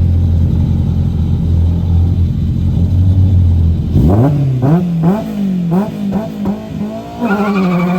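Historic rally car engine held at steady high revs on the start line. About four seconds in it launches, and the revs climb and drop several times in quick succession as the car pulls away hard. Near the end the note holds high and begins to fall away.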